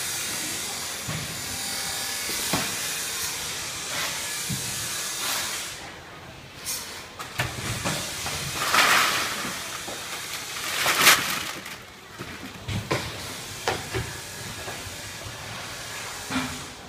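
Factory assembly-line noise: a steady hiss that drops away after about five seconds, then scattered knocks, clicks and short hissing bursts from tools and parts being handled at the workbenches.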